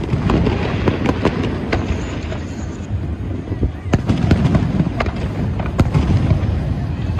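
Aerial fireworks shells bursting in quick, overlapping succession: sharp cracks and booms over a continuous low rumble, easing a little about two seconds in before building again.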